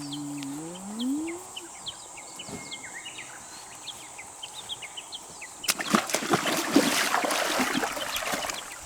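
Water splashing and sloshing in the koi pond, loudest for about three seconds from about six seconds in. Before it come small birds chirping and a short low sound rising in pitch near the start.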